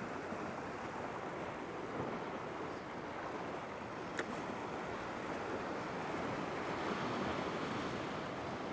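Ocean surf washing against jetty rocks, a steady rush. A single sharp click about four seconds in.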